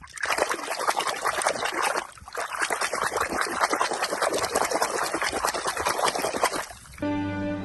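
Water pouring and splashing in two stretches, with a short break about two seconds in. Music starts near the end.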